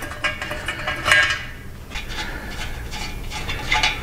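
A wrench clinking and clicking against steel motorcycle exhaust header pipes as fittings on them are worked loose: irregular metallic clicks, the loudest clink about a second in.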